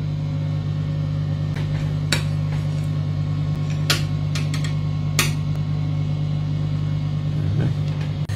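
A steady low hum, with a stainless steel mesh strainer knocked and tapped against a ceramic plate about half a dozen times at uneven intervals to shake out drained ant larvae.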